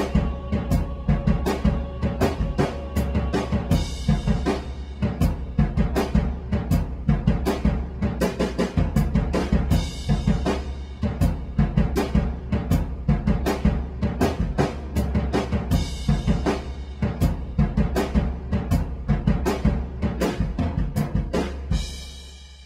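Music with a steady, driving drum-kit beat over a heavy bass, fading out near the end.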